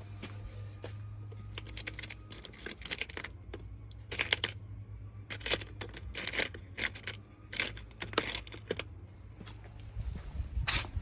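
Small metal Torx bits and tools clicking and clinking irregularly as they are rummaged through and tried, a T10 sought for the screws; a steady low hum runs underneath.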